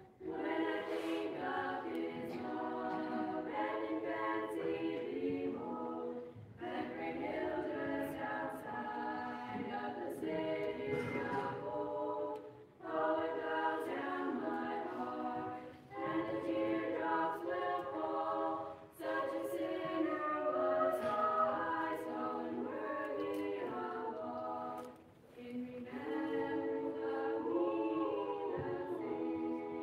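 A mixed choir of children and teenagers singing a cappella, in phrases of a few seconds with short breaks for breath between them.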